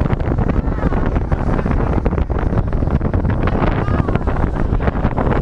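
Wind buffeting the microphone in a loud, steady rumble, as on an open boat out on the sea.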